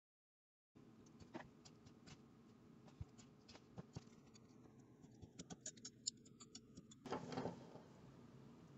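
Faint, scattered ticks and light scratching from a straight razor blade and fingers on a black fork stanchion while hardened nail-polish filler is scraped flush over a scratch, with a short louder rub about seven seconds in.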